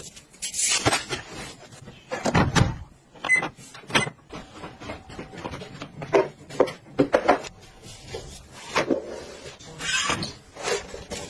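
A string of separate clicks, knocks and clatters from household objects being handled, uneven in loudness with no steady running sound.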